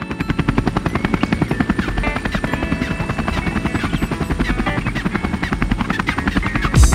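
DJI Spark quadcopter's propellers and motors buzzing in flight, a fast even hum with a whine that shifts in pitch. A sharp knock comes just before the end.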